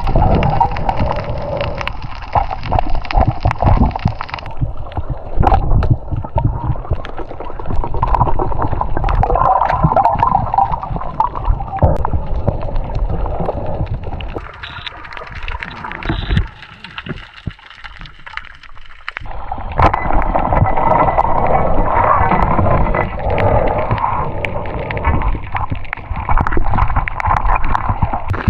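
Water gurgling and sloshing close against the microphone, with many small knocks and bubbling. It dips quieter for a few seconds in the middle.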